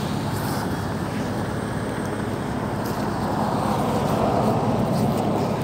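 Steady low rumble of vehicle noise, swelling a little louder about four seconds in.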